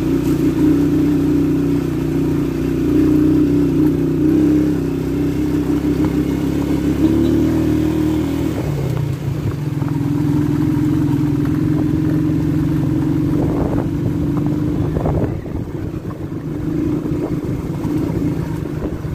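Motorcycle engine running steadily under way, its pitch dipping and picking up again about eight and a half seconds in, then easing off briefly around fifteen seconds.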